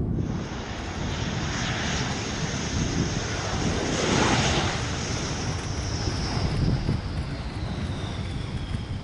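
F-15 fighter's twin jet engines on landing approach: a steady jet roar with a high whine that slowly falls in pitch. It is loudest about four seconds in.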